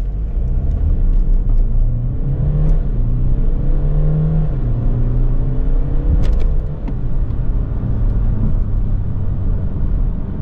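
BMW 125d's four-cylinder twin-turbo diesel accelerating hard from a standstill, heard from inside the cabin: the engine note climbs, dips at each automatic upshift about two and a half and four and a half seconds in, and climbs again. It then eases off to a steadier, lower note as the car slows, with a single sharp click a little past the middle.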